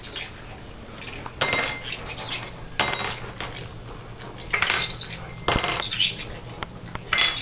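Parrot knocking and tossing its small toys about: short bursts of metallic clinking and jingling, some with a bell-like ring, coming every second or so.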